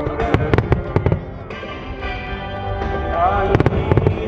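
A fireworks starmine barrage of shells going off in a quick volley of sharp bangs and cracks, with a second cluster near the end, over music.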